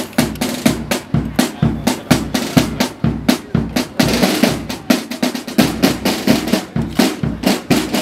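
Drum corps playing a marching beat on military side drums, with bass drum strokes beneath the rapid stick strikes and a denser roll about halfway through.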